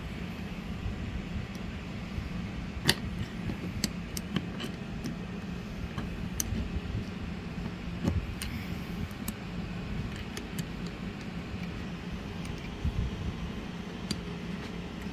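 Scattered light metallic clicks and knocks as small rocker box parts (rocker arms, washers, shaft) for a Triumph 650 are handled and fitted, over a steady low workshop hum. The sharpest click comes about three seconds in and a heavier knock about eight seconds in.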